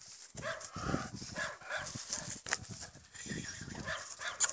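Young German Shepherd barking in short, irregular bursts during rough play.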